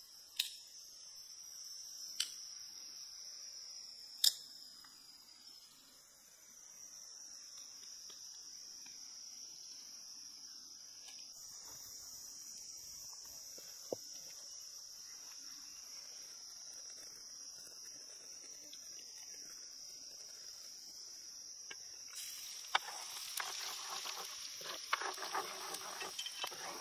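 Insects chirring in a steady high drone, with three sharp knocks in the first few seconds. From about 22 seconds in, hot oil starts sizzling and spattering in a wok, with a dense crackle that is the loudest sound here.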